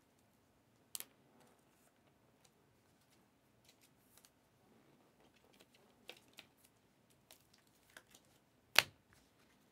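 Trading card box and packs being handled and opened by hand: scattered light clicks and crinkles, with a sharp click about a second in and a louder one near the end.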